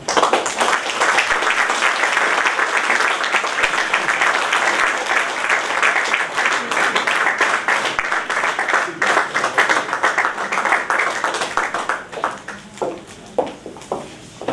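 Audience applauding, starting suddenly and dying down about twelve seconds in to a few scattered claps.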